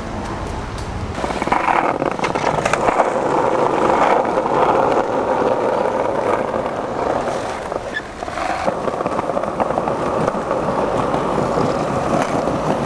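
Skateboard wheels rolling over paved ground, a steady rolling noise with scattered clicks, starting about a second in. It dips briefly about eight seconds in, then carries on.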